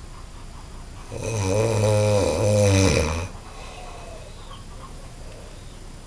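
A person snoring very loudly: one long snore about two seconds long, starting about a second in, with a deep buzzing pitch that wavers slightly in the middle.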